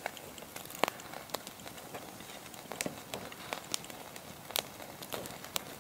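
Wood campfire crackling: irregular sharp pops and snaps, about eight of them, over a faint steady hiss.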